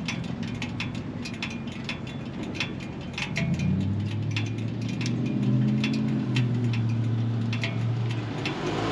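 Irregular sharp ticking from a hot Harley-Davidson Milwaukee-Eight 114 engine and its exhaust pipes cooling just after a ride, the metal contracting as it cools. A low engine drone comes in about three and a half seconds in and fades out near the end.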